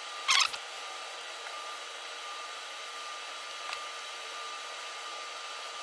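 Steady hiss with a faint thin high tone throughout. About a third of a second in, one short, loud scrape as small pliers crimp a pin onto a wire, with a faint click later.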